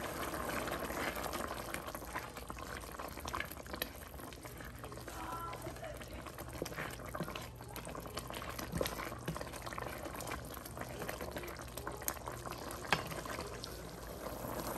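Tomato sauce boiling in a stainless steel pot: a steady bubbling with many small pops, while a wooden spatula stirs it.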